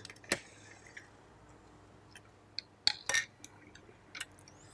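Small metal clicks and clinks of an LGA 1151 CPU socket's load plate being closed over the seated CPU and its retention lever pressed down: one click shortly after the start, a short cluster about three seconds in, and another click near the end.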